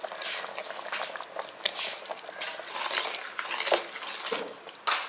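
Metal spoon stirring a simmering pot of jaggery vermicelli payasam, with irregular clinks and scrapes against the pot.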